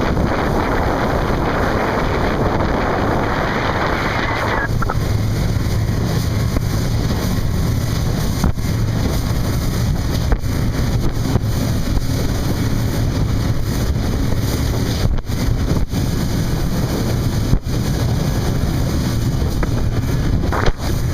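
Wind rushing over the microphone on a running motorboat. About four and a half seconds in the loud hiss drops away, leaving a steady low drone from the boat's Honda outboard engines under continuing wind rumble.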